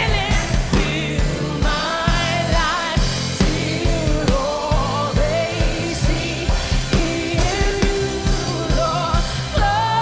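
Live gospel worship singing by a small group of women's voices, with long held notes and vibrato, over steady bass and an even drum beat.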